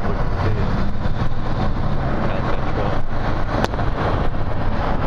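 Steady road and engine noise of a car driving in moving highway traffic, heard from inside the vehicle, with a brief click about three and a half seconds in.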